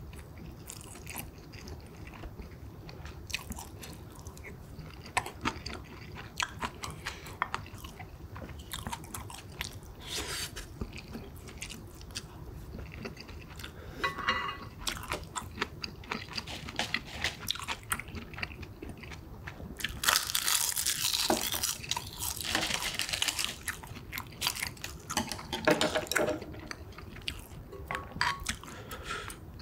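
Eating sounds: a person chewing and biting mouthfuls of rice and pork kimchi stew, with irregular short clicks and smacks of the mouth and spoon. A denser, louder stretch of eating noise comes about two-thirds of the way through.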